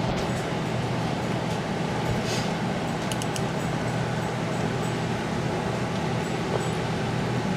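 A steady mechanical hum like a fan runs throughout. A few faint sharp cracks near the middle are the glue cracking as a boiled RC car tire is peeled off its rim by hand.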